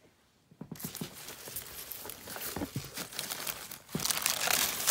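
Packing material crinkling and rustling as a hand rummages through a cardboard box. It starts about half a second in and gets louder near the end.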